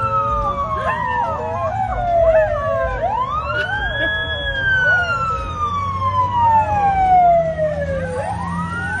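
Emergency siren on a slow wail: each sweep rises quickly, then falls over about four seconds, twice over with a third starting near the end. Two dogs howl along with it in wavering pitches.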